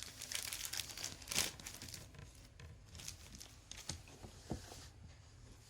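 Plastic packaging wrap crinkling and rustling as it is handled, with scattered sharp crackles, busiest in the first two seconds.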